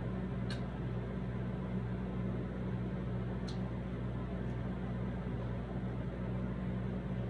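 A steady low mechanical hum with an even hiss over it, like an appliance or fan running, with two faint short clicks about half a second and three and a half seconds in.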